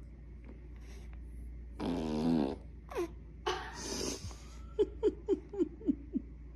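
A baby passing gas: a buzzy fart lasting under a second about two seconds in, then a run of about six short squeaks, each falling in pitch.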